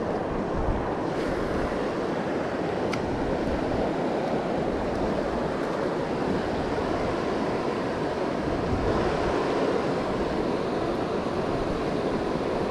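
Steady rush of flowing river water, even in level throughout, with a single faint click about three seconds in.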